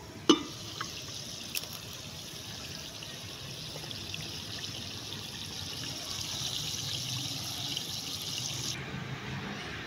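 An aluminium lid clanks once against the pot as it is lifted off. Then chicken karahi gravy sizzles and bubbles in a steel karahi on a gas flame, a steady hiss with light crackle that cuts off abruptly near the end.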